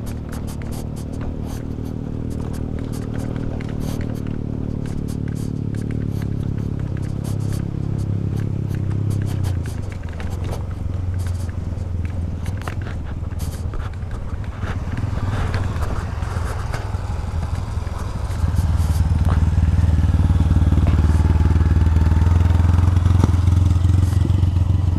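Motorcycle engine running at low revs on a descent, with scattered crackles and clicks over it. The engine note shifts about ten seconds in and turns louder and steadier a little after the halfway mark.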